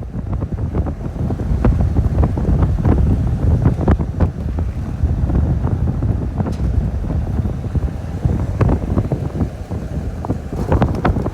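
Wind buffeting the microphone: a heavy, uneven low rumble with scattered knocks and rattles.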